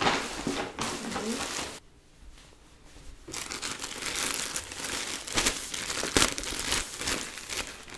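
A paper shopping bag rustling as a beach towel in a clear plastic bag is slid out, then the plastic wrapping crinkling under the hands, with a few sharp crackles. A short lull comes about two seconds in.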